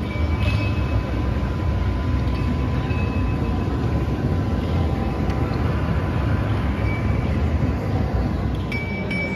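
Steady low rumble and din of a large exhibition hall, with a faint steady high hum and a few short high pings near the end.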